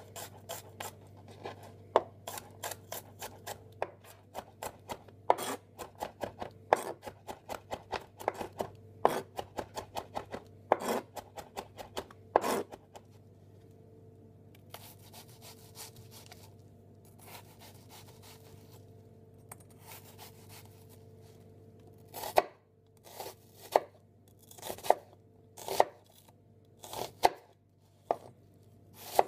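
Chef's knife chopping on a plastic cutting board. First comes a fast run of taps cutting garlic cloves for about twelve seconds. A quieter stretch of fewer, fainter cuts into an onion follows, and near the end come louder single chops about one a second.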